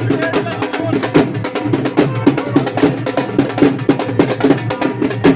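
Music with fast, dense drumming: rapid, evenly repeating drum strokes over a steady beat.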